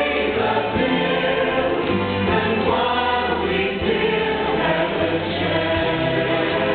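A choir singing in several parts over instrumental accompaniment.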